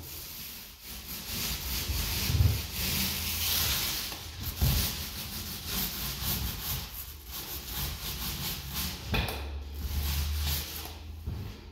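Paint roller on an extension pole rolling paint onto a wall: a rough rubbing hiss that swells and fades with each stroke.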